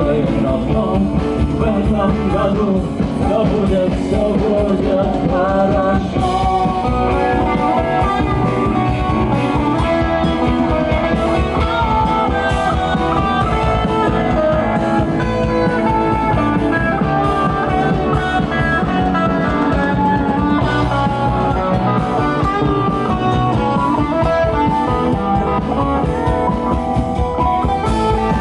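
Instrumental break of a rock song: guitar playing over a steady beat, with no singing.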